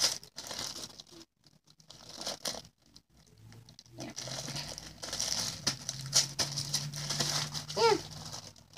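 Clear plastic bag crinkling in irregular crackly bursts as slime is worked into it and the bag is handled, with a quieter stretch in the first few seconds.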